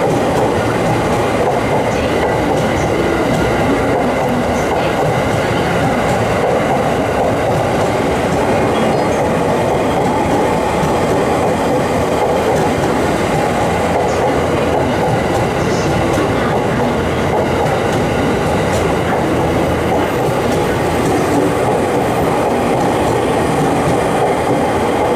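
Electric commuter train running along the tracks, a steady loud rumble of wheels on rails with faint occasional knocks.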